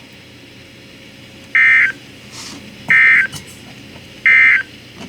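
Three short bursts of Emergency Alert System digital data screech from NOAA Weather Radio, about a second and a half apart: the end-of-message codes that close the alert just read. Radio receiver hiss fills the gaps between them.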